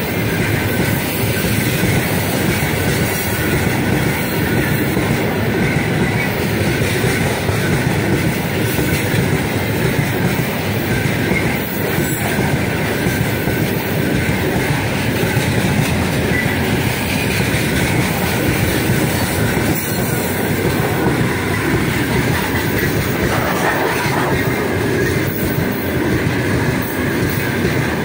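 Heavy loaded freight train of open gondola wagons rolling past close by: a steady, loud rumble and clatter of steel wheels on the rails.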